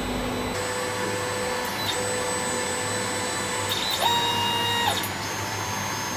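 Creality Ender-5 Plus 3D printer auto-homing: its stepper motors whine as they drive the print head, in steady tones that stop and restart, jumping to a higher pitch for about a second around the middle before dropping back.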